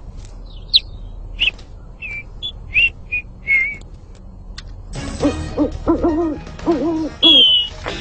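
Small parrot chirping with short, high whistled calls, then a run of lower hooting notes about five seconds in and a long high whistle near the end.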